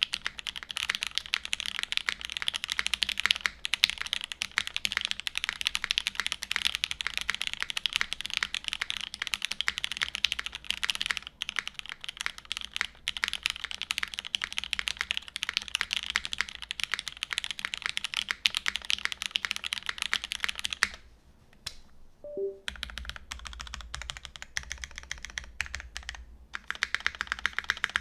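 Custom mechanical keyboard being typed on fast and continuously: Gateron Ink switches lubed with 205g0, on a UHMWPE plate under GMK keycaps. There is a brief pause about three-quarters of the way through before the typing resumes.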